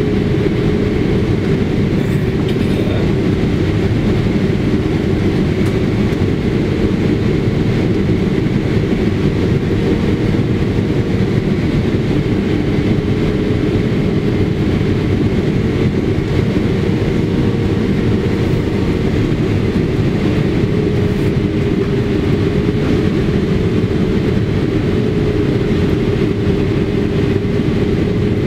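Boeing 777-300ER cabin noise on final approach, heard from a window seat beside the wing: the GE90 turbofan engines and the airflow make a steady, loud rumble with a constant hum.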